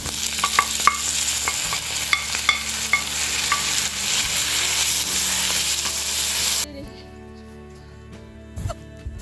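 Food frying in hot oil, a steady sizzle with scattered small pops and spits, which cuts off abruptly about two-thirds of the way in.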